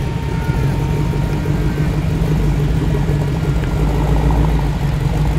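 Car engines running at low revs as cars roll slowly past in a queue, the nearest a classic Ford Mustang fastback: a steady low rumble.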